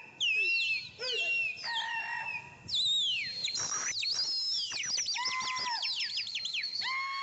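Shrill whistled calls: held high notes that slide down in pitch at their ends, then a quick run of many rapid falling chirps through the middle and latter part.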